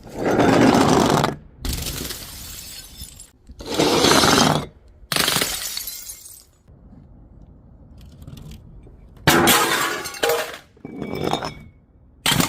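Glass bottles shattering one after another, about six crashes each lasting around a second, with a pause of a few seconds in the middle and clinking glass near the end.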